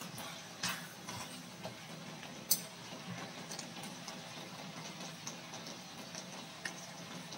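Chicken feet frying in thick, reduced adobo sauce in a cast iron skillet, sizzling with scattered small pops and clicks. One sharp pop comes about two and a half seconds in.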